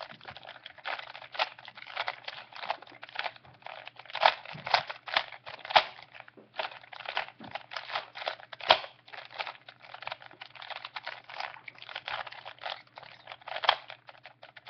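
Rubik's Cube being twisted by hand: a quick, irregular run of plastic clicks and clacks as its layers turn.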